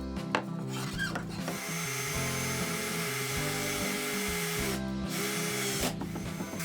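A power tool runs steadily for about three seconds, stops briefly, then runs again for about a second, over background music.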